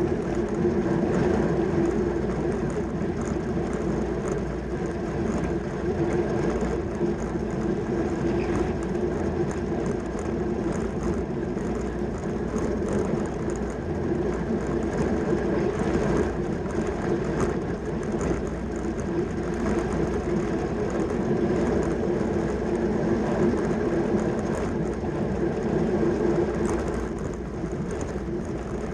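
Track bike riding at racing speed: a steady whir of tyres and chain, with wind rushing over the microphone.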